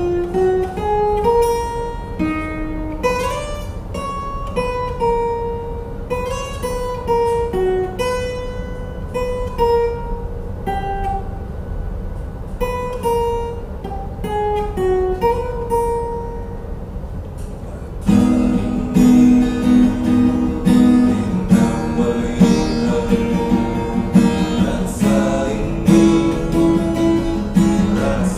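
Acoustic guitar: a picked single-note melody, then, about two-thirds of the way in, louder strummed chords. A steady low hum runs underneath.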